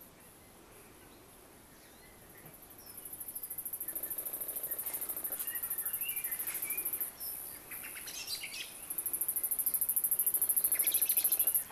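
Insects chirring high and fast in a rapid pulsing rhythm that starts about three seconds in, drops out for a moment past the middle and resumes, with scattered bird chirps.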